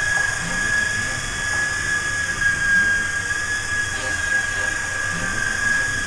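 Venom Ozone 3-channel RC helicopter running in a hover: its battery-powered electric motor and rotors give a steady high whine over a hiss, the pitch wavering slightly.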